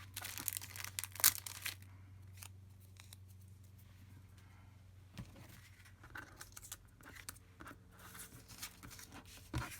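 Paper and card being handled: crisp rustling and crinkling, busiest in the first couple of seconds and again near the end.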